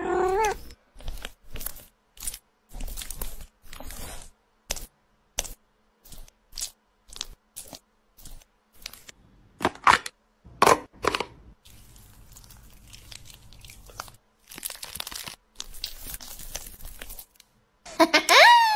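A cat meows briefly at the start and again near the end. In between come many short kitchen handling sounds: taps, crunches and rustles of food being prepared.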